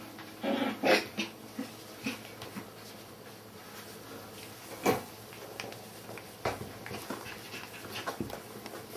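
Border Collie puppies whimpering and giving short cries, loudest about half a second to a second in, with scattered clicks and taps from the puppies moving about, one sharp knock near the middle.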